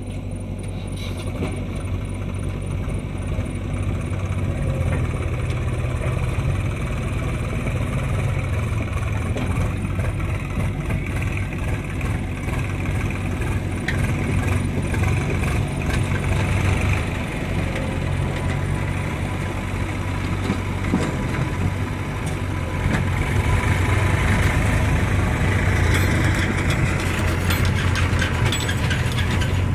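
Diesel engine of a JCB backhoe loader running under working load, its loudness swelling and easing as the machine digs and loads. A cluster of rattling clicks comes near the end.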